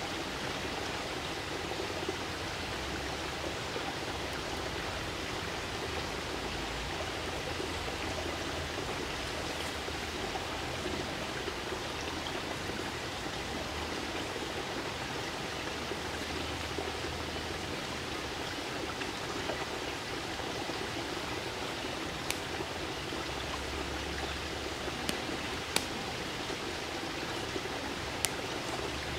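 Small forest creek flowing steadily, a constant rushing and trickling of water. A few short, sharp clicks near the end.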